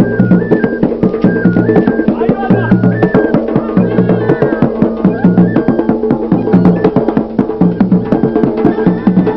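Dance music with a steady beat: drums and hand percussion under a short melodic riff and bass line that repeat about once a second.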